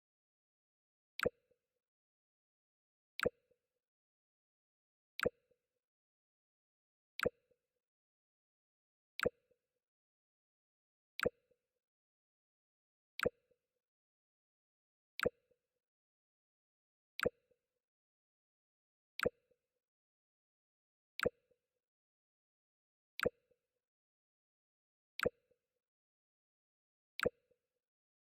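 The Mac OS X 'Jump' system alert sound, played over and over once every two seconds: each time a sharp click followed by a short low plop.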